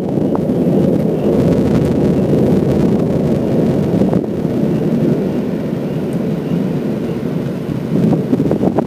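Long roll of thunder rumbling steadily, easing off slightly near the end.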